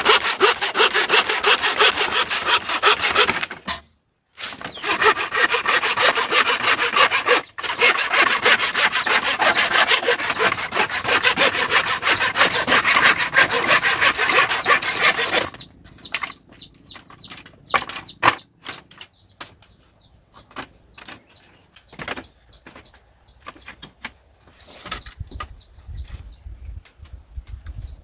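Hand saw cutting through wood in quick back-and-forth strokes for a little over half the time, pausing briefly twice, then stopping. After it stops there are scattered light knocks and a faint high peeping.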